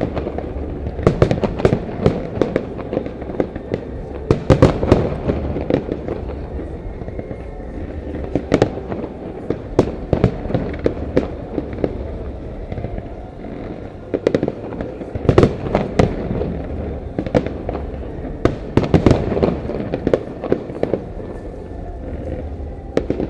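Fireworks display: shells bursting in a rapid, irregular series of sharp bangs, bunched into volleys every few seconds, with echoes trailing after them.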